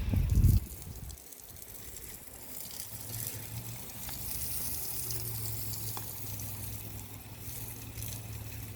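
Water spraying from an expandable garden hose, a steady hiss of spray over a low hum. A loud low rumble in the first half second.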